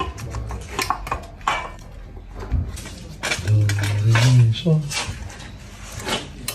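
Metal tools and parts clinking and clattering, with repeated sharp clinks, as work goes on on the generator.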